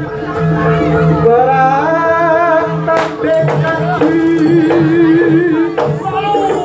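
Jaranan accompaniment music: a held, wavering melody line, sung or played on a reed pipe, over a steady drone and sharp drum strokes.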